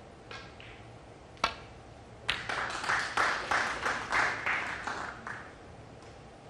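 Snooker cue striking the cue ball with one sharp click, followed about a second later by three seconds of applause, about three claps a second.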